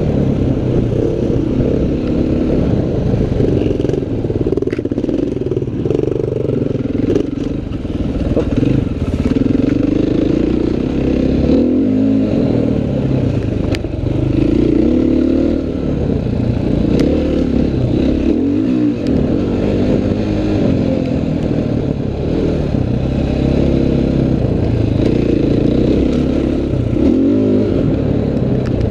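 Dirt bike engine ridden hard, revving up and down over and over as the throttle opens and closes, with a few sharp ticks and clatter along the way.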